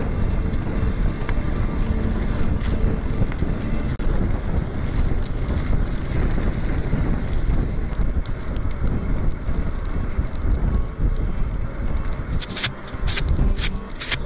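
Wind buffeting the microphone of a handlebar-mounted camera on a mountain bike at speed, over the rumble of the tyres on the road. Near the end come a few sharp knocks.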